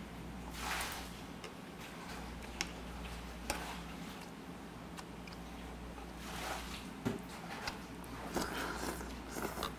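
A man eating: chewing and slurping spoonfuls of soup, with a few sharp clicks of a metal spoon and chopsticks against the bowl.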